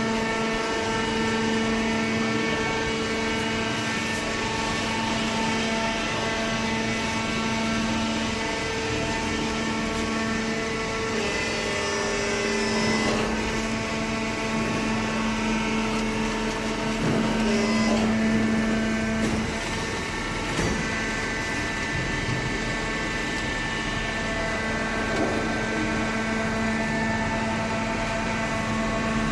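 Hydraulic baling press running: a steady machine hum from its motor and pump, whose tone shifts a few times through the stretch.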